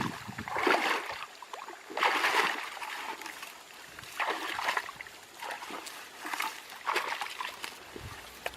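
Water splashing and sloshing in short, irregular bursts, about one a second.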